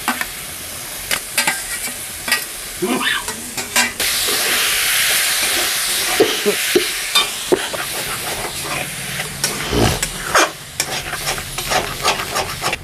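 Spatula scraping and clicking against a pan while lote fish (Bombay duck) fries in oily spice paste, sizzling. About four seconds in the sizzle suddenly gets louder for a few seconds, then eases back under the continued stirring.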